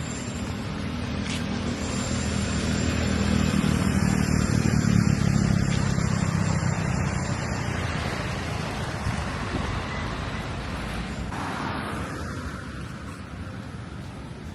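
Road vehicle engine and traffic noise, a low rumble that grows louder over the first five seconds or so and then slowly fades.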